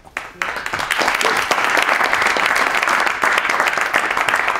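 Audience applauding, the clapping starting about half a second in and then holding steady.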